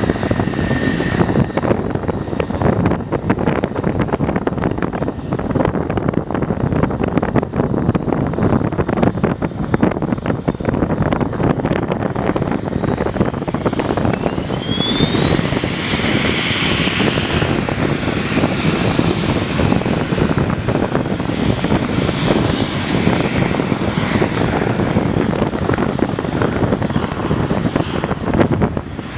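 Cessna Citation business jet's twin rear-mounted turbofans spooling up to takeoff power over a loud, steady rushing engine noise: a whine rises about halfway through, then holds steady as the jet rolls for takeoff.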